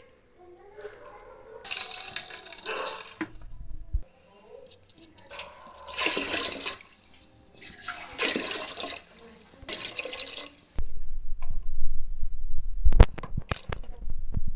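Water sloshing and splashing in several short bursts as soaked rice is worked by hand in a steel pot. In the last few seconds this gives way to a low rumble with a few sharp knocks.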